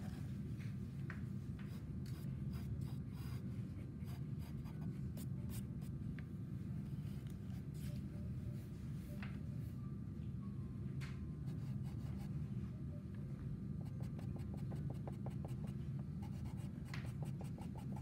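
Sienna Conté pencil scratching on toned drawing paper in short strokes, quickening into a rapid run about three-quarters of the way in, over a steady low hum.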